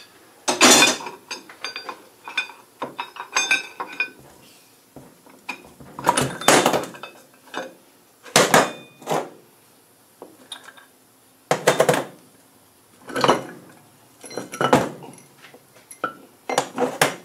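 Heavy steel differential parts clanking and rattling against each other and a steel workbench as the differential is stripped: the crown wheel and carrier worked out of the housing and its bearings set down. About ten separate sharp metal knocks and rattles, some ringing briefly, a second or more apart.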